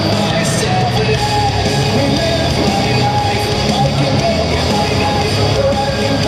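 Loud heavy rock music with distorted guitars and a singing voice, played steadily without a break.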